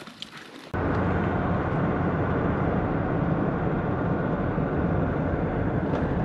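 Steady road and engine noise inside a vehicle's cabin at highway speed, a low rumble that cuts in abruptly under a second in, after a few quiet moments.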